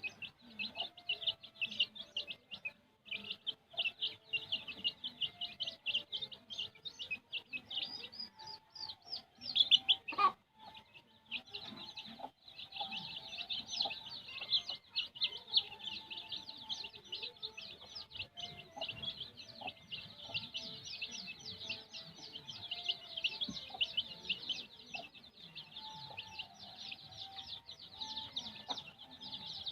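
A brood of kampung chicken chicks peeping constantly: many short, high, falling peeps overlapping into a dense chorus, with lower clucks underneath. A couple of sharp knocks about ten seconds in.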